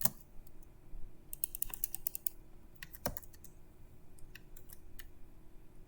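Typing on a computer keyboard: scattered key clicks with a quick run of keystrokes about a second in and a couple of heavier key presses, over a faint steady hum.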